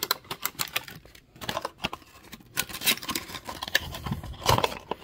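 Handling and opening a toy blind box's packaging: irregular small clicks and taps, quieter for a stretch between about one and two and a half seconds in.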